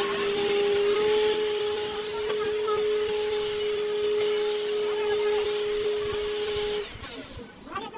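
A small electric motor running steadily, a constant hum over a hiss, which stops abruptly about seven seconds in.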